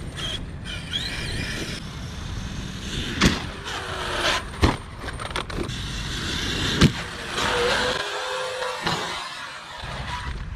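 Arrma 8S RC car's brushless electric motor whining as it speeds up and slows down, the pitch rising and falling, with its tyres running over grass. Three sharp knocks come along the way, about a second or two apart.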